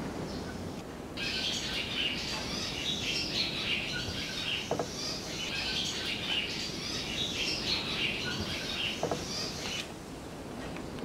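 Birds chirping in a dense, continuous, high-pitched chatter that starts suddenly about a second in and stops suddenly near the end.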